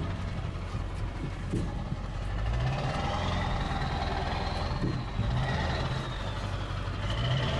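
Pickup truck's engine running from inside the cab as it drives slowly over sand and bumps, pulling a little harder and louder about two and a half seconds in, with a faint high whine that rises and falls.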